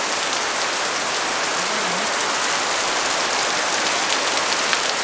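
Heavy rain falling steadily: a dense, even hiss dotted with the sharp ticks of individual drops.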